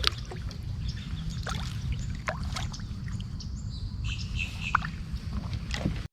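Outdoor lake ambience from a kayak: a steady low wind rumble on the microphone with scattered small clicks, and a brief bird chirp about four seconds in. The sound cuts off abruptly at the very end.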